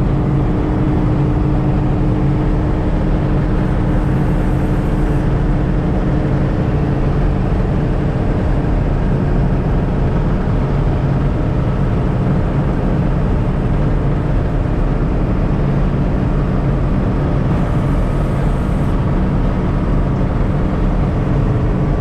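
John Deere 6600 combine running steadily under load, with a steady whine over the engine that fades out about eight seconds in.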